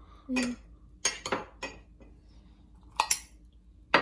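Cutlery clinking and knocking against dishes and a cup in short separate strikes: a few knocks about a second in, then a sharp, ringing clink about three seconds in.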